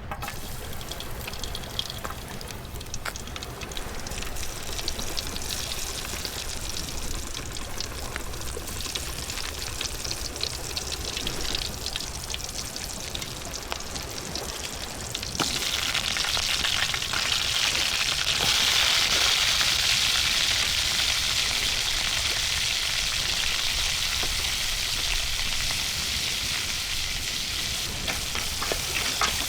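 Food frying over a cooking fire: a steady sizzle scattered with small crackles, which jumps louder about halfway through.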